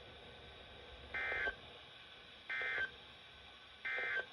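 Emergency Alert System end-of-message code: three identical short bursts of warbling data tones, about a second and a half apart, signalling that the alert has ended.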